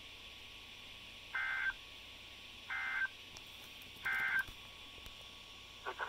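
Three short bursts of Emergency Alert System (SAME) digital data tones from a NOAA Weather Radio broadcast, each a warbling buzz of about a third of a second, a little over a second apart: the end-of-message code that closes a severe thunderstorm warning. Heard through a computer's speaker.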